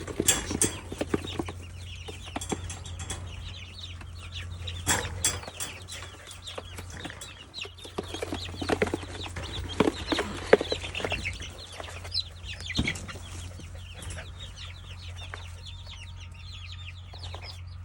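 Newly hatched Orpington chicks peeping continuously: many short, high, falling chirps overlapping. A few knocks and handling noises break in, over a steady low hum.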